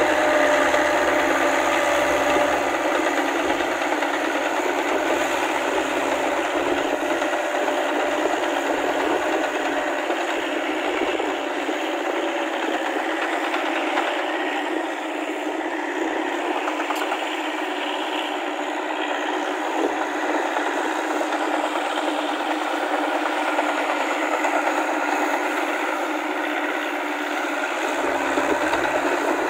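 Massey Ferguson tractor's diesel engine running under load as it pulls a rotary tiller through a flooded paddy on rattling crawler tracks. The sound is steady, eases off a little in the middle as the tractor moves away, and grows louder again near the end as it comes back close.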